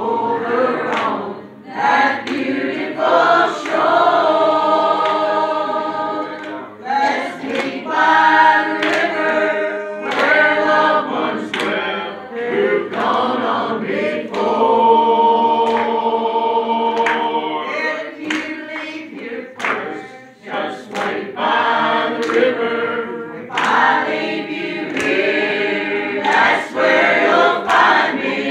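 A small group of women singing a gospel song together in a church, with hand claps from the congregation keeping time.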